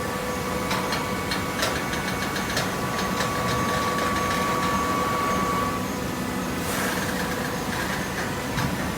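Industrial machinery running steadily with a low hum and a thin steady whine that fades out about six seconds in. Scattered clicks sound during the first few seconds, and a short rushing burst comes near the end.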